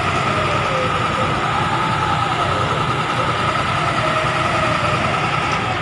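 Concrete mixer truck running steadily, a low engine rumble under a constant high whine, with a fainter tone that slowly rises and falls every couple of seconds.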